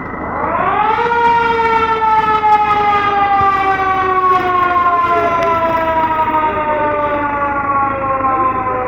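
Fire truck's mechanical siren started with a button: it winds up to a loud wail within about a second, then its pitch slowly slides down as it coasts.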